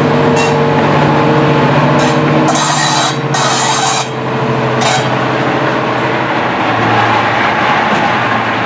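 Class 55 Deltic diesel locomotive running past slowly, its Napier Deltic two-stroke engines giving a steady low drone. Bursts of hiss come about two to four seconds in, and the engine note drops to a lower pitch about seven seconds in.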